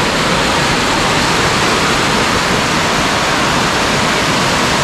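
Water pouring over a low weir into a shallow river, a loud, steady rush.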